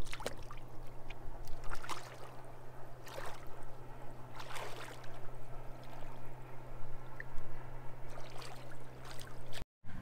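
Water splashing and sloshing around the legs of a person wading into shallow water, in uneven strokes roughly every second and a half, over a steady low hum. The sound breaks off abruptly just before the end.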